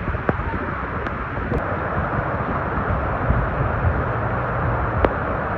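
Strong wind buffeting the microphone: a steady low rumble and rush of noise, with a sharp click about five seconds in.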